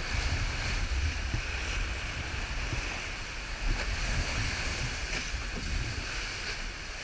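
Sailing trimaran under way at sea: rushing water along the hulls with wind buffeting the microphone in a steady low rumble.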